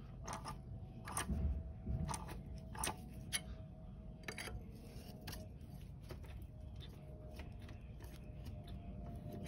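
Sharp metallic clicks, several in the first few seconds and sparser after, from the intake camshaft adjuster of a Mercedes-AMG M156 V8 being rocked back and forth on its camshaft. The clicks come from play in the adjuster, which is not held locked when oil pressure is gone: the fault behind its rattle on a cold start.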